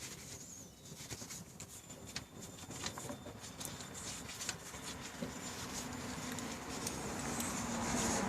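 Faint, irregular light clicks and taps from hand work under the car at the rear differential, around the filler plug.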